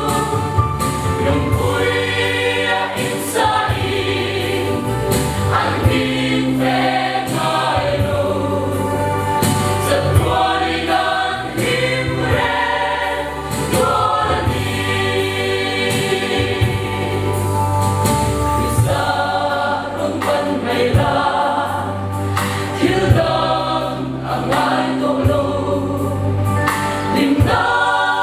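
Choir singing a Mizo-language gospel song.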